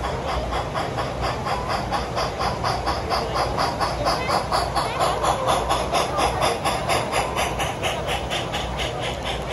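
Sound-equipped HO-scale model steam locomotive chuffing with a steam hiss, in rapid, even beats as it runs past, over a low steady hall hum.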